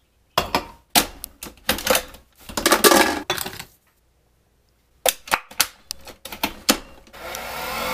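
Clicks, knocks and clatter of a Nespresso Vertuo coffee machine being handled, its lid, a capsule and a glass set in place, in two runs with a pause between. About seven seconds in, the machine starts its brewing cycle with a steady whirring hum.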